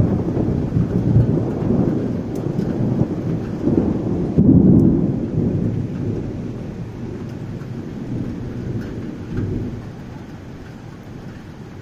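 Thunder rumbling deep and rolling, swelling again about halfway through and then fading away.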